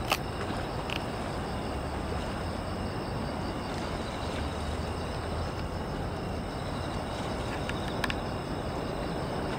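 Steady night-time city hum of distant traffic with insects chirping over it, and a sharp click right at the start and another about eight seconds in.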